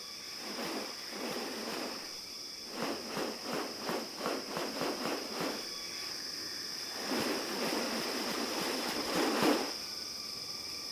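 Rainforest insects droning steadily at one high pitch, overlaid by bursts of noise: a quick series of about three short pulses a second, then a longer swell that peaks and cuts off near the end.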